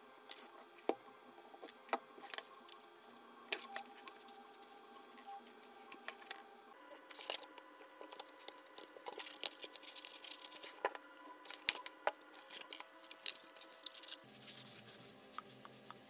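Irregular light clicks, taps and rustles of hands handling foam-board airframe parts and a thin wire on a cutting mat, over a faint steady hum.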